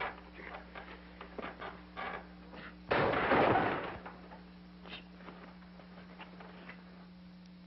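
A single loud bang about three seconds in that fades over about a second, after a run of small knocks and rustles, over a steady low hum.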